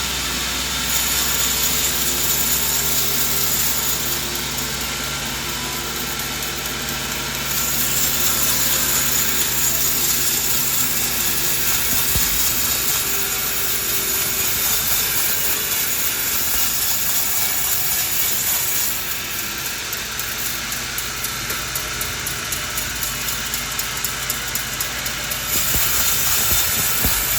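Sawmill blade cutting coconut wood, a steady machine whine and rasp that grows louder in stretches while the blade is in the cut and eases between cuts.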